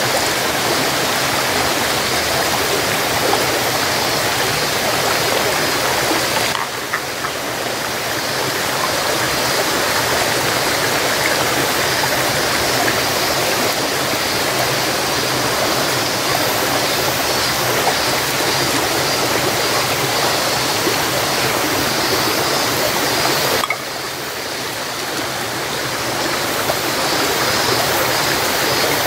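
A mountain stream rushing over rocks, a steady full hiss of running water. It dips twice and swells back.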